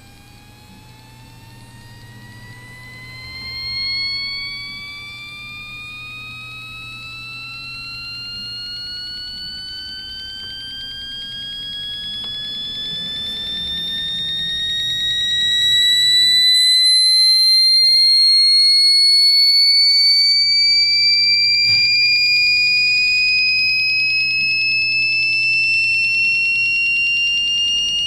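Piezo speaker on a microcontroller board playing a slow, steady upward sweep in pitch, a thin electronic tone with overtones that grows louder as it climbs.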